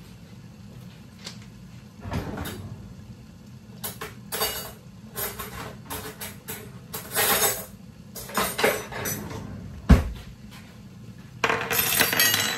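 Cookware and utensils being handled in a kitchen: a run of irregular clattering and scraping from pots, lids and spoons, with one sharp knock about ten seconds in, over a steady low hum.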